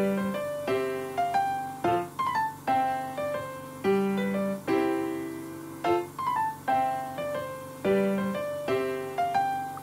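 Background piano music: a melody of struck notes that ring and fade in a steady rhythm.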